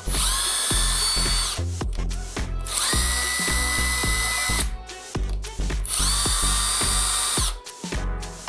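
Bosch 18 V cordless power tool running unloaded three times, each run a steady high whine of one and a half to two seconds. Background music plays throughout.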